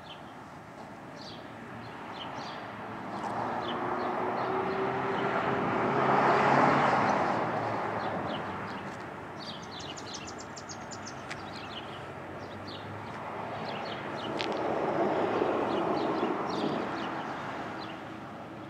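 Two motor vehicles passing by, one after the other, each swelling up and fading away: the first peaks about six seconds in, the second around fifteen seconds. Small birds chirp throughout, with a quick trill about ten seconds in.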